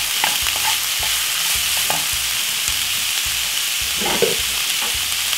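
Minced beef and onions sizzling in a non-stick frying pan as the meat starts to brown, with a wooden spoon stirring it and a few sharp taps of the spoon against the pan.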